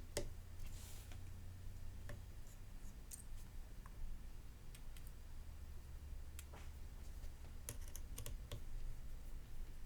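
Small, irregular clicks and taps of a precision Phillips screwdriver and metal tools working the tiny screws of an iPhone 13's battery-connector shield plate, over a low steady hum.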